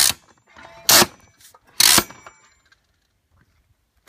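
Headrest of a Grammer MSG75-series seat being moved through its indexed height positions: three sharp clacks about a second apart as the silver clips catch each notch, with a brief ring after each.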